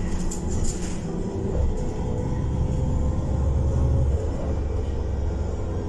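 Heuliez GX337 natural-gas city bus heard from inside the passenger cabin while driving: a low engine and road rumble that swells in the middle, with a faint steady drivetrain whine.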